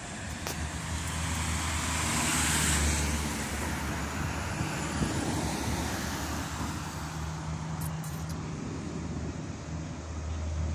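Road traffic: a vehicle passes close by about two to three seconds in, its engine and tyre noise swelling and then fading, over a steady low engine hum that grows again near the end as another vehicle approaches.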